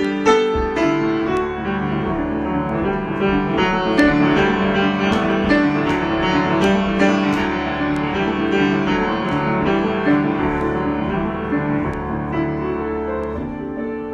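Improvised solo piano music: notes and chords struck one after another over sustained low tones.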